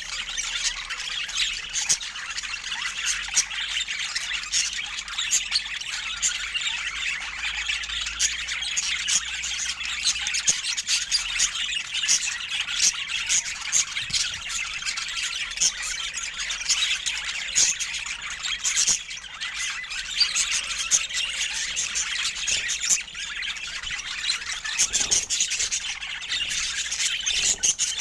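Budgerigars chattering: a dense, unbroken stream of short chirping calls.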